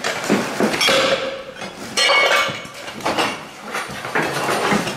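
Loose sheet metal and scrap clattering and clinking in repeated bursts as dogs scramble through the pile, loudest about a second in and again around two seconds in.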